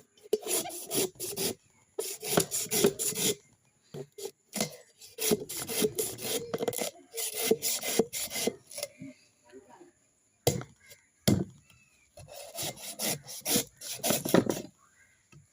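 Quick, rhythmic scraping strokes in about five bursts of a second or two each, with short pauses between, and a couple of single knocks in the middle.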